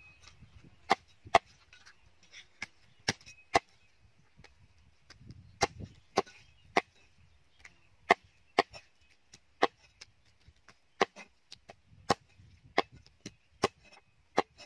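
Cleaver chopping raw chicken on a round wooden chopping block: a run of sharp chops, unevenly paced at about one or two a second.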